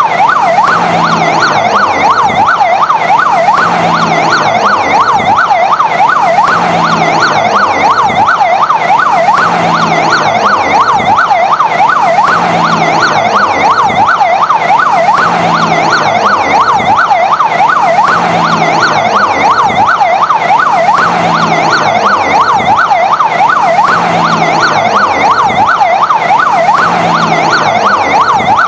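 Fire engine siren sounding in a fast yelp, its pitch sweeping rapidly up and down several times a second without a break.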